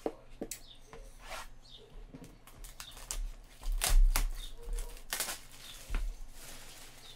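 Trading-card boxes and packs being handled: irregular rustling of cardboard and card stock with sharp clicks, the loudest bursts about four and six seconds in.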